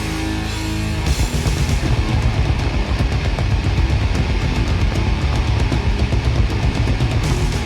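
Death metal recording with distorted electric guitars, bass and drums. A chord rings out for about the first second, then a fast riff starts with rapid, pounding drumming.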